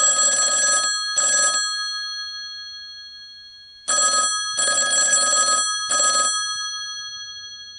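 Old landline telephone bell ringing, the stock Universal Studios phone-ring sound effect. It rings twice: each ring is three quick bursts of bell clatter, then the bell rings on and fades out. The second ring starts about four seconds in.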